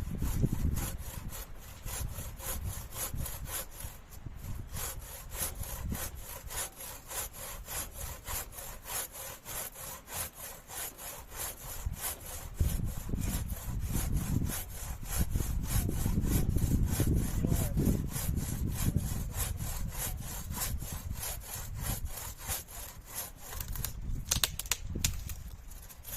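Hand saw cutting through wood in steady, rapid back-and-forth strokes that stop near the end, with gusts of wind rumbling on the microphone.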